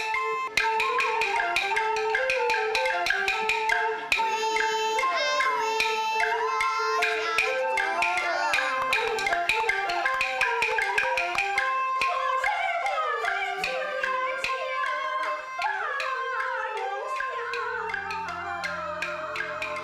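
Traditional-style instrumental music: a sliding, wavering melody line over a dense, fast clicking percussion beat, with low steady tones entering near the end.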